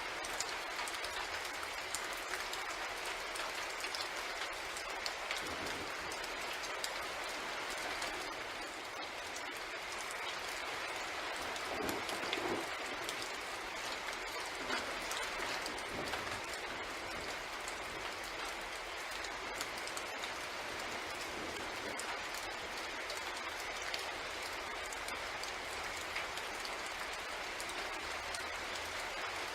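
Steady rain on a night-train ambience: an even hiss of rain with scattered drops ticking, and a faint steady band under it. A few soft low knocks come around the middle.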